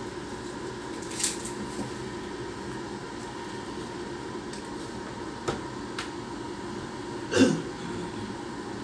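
Handling of an iPhone 12 Pro Max and its box: a few light clicks and taps, then a louder knock about seven seconds in as the phone is laid down on the box, over a steady background hum.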